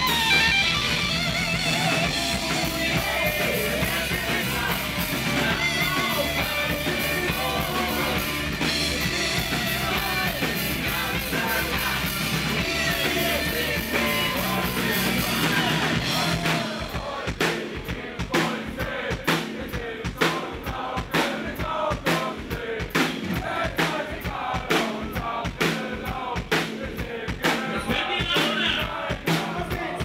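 Live rock band with electric guitar, bass guitar and drum kit playing, amplified through a stage PA. About halfway through, the dense full-band sound thins out to a steady beat of sharp drum hits.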